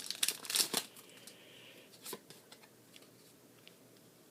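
Foil booster pack wrapper crinkling loudly for about the first second as it is handled, then faint rustles and a light click of cards being handled.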